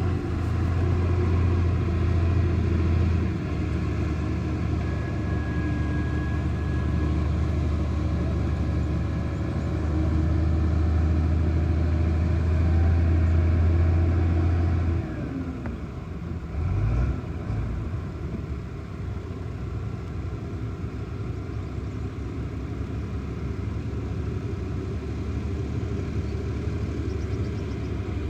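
Heavy earthmoving machine's diesel engine running hard with a steady low drone, then easing off about halfway through, with a brief surge shortly after before it settles to a lower, steady run.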